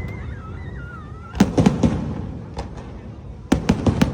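Fireworks display: aerial shells bursting in quick clusters of sharp bangs, about a second and a half in and again near the end, each cluster's rumble dying away before the next.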